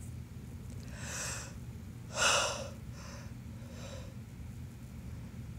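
A man breathing audibly close to the microphone: three or four short breaths or sniffs, the loudest about two seconds in.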